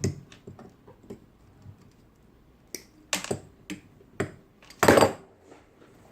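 Irregular clicks and knocks from handling a Brother electric typewriter and connecting its power cord, with one loud clack about five seconds in.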